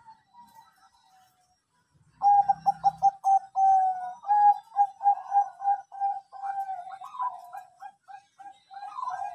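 Bangkok-type zebra dove (perkutut) cooing. After a faint first two seconds it breaks into a long, fast run of short, clipped coos that carries on steadily.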